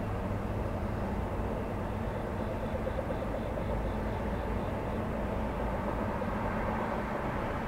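Steady road traffic: a continuous low rumble of engines and tyres from passing vehicles. A faint high ticking, about four a second, runs for a few seconds in the middle.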